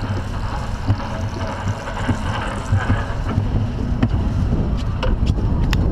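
Roller coaster train climbing the lift hill: a steady low rumble from the lift and the wheels on the track, with wind on the microphone and a few sharp clicks near the end as it nears the crest.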